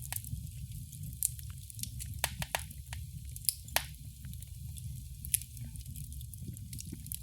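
Fire in a fireplace crackling, with irregular sharp pops and snaps, the loudest a little after three and a half seconds and again past five seconds, over a low steady rumble of the flames.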